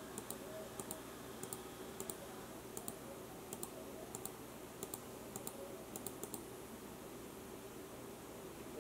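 Faint clicking of a computer keyboard and mouse: short, separate clicks, some in quick pairs, about one every half second to second, stopping a little over six seconds in.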